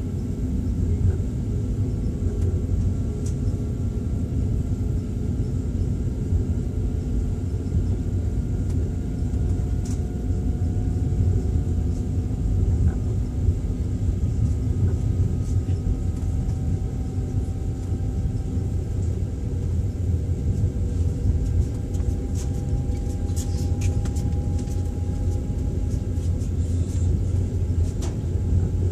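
Passenger train carriage running on the rails, heard from inside the car: a steady low rumble, with a faint tone slowly rising through the middle and a few sharp clicks near the end.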